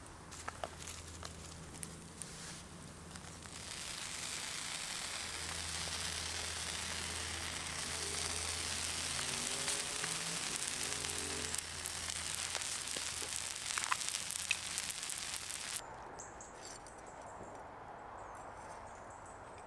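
Food sizzling over a campfire, growing louder a few seconds in, with a few sharp pops, then cutting off abruptly near the end.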